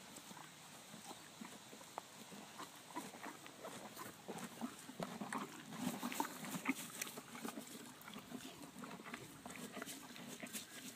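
Horse eating close up: crisp crunching and tearing as it chews grass and hay, a fast irregular patter that grows louder and busier a few seconds in.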